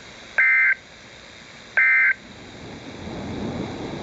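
Emergency Alert System end-of-message data tones: short, shrill two-pitch warbling bursts, heard twice about a second and a half apart, the last of the three bursts that close the alert. A lower rough noise then swells up near the end.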